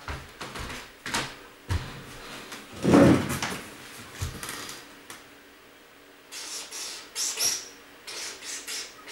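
Storage boxes being handled and set down: a string of short knocks with a heavier thump about three seconds in, then bursts of scraping and rustling in the second half, in an echoing, nearly empty room.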